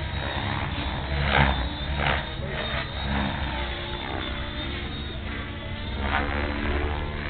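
Blade 700X electric RC helicopter flying aerobatics overhead: the rotor blades whoosh in loud surges about one and a half, two and six seconds in, with faint gliding motor whine, over a steady low rumble.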